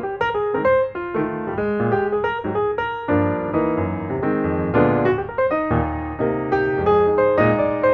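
Background piano music, a steady run of notes with a few chords.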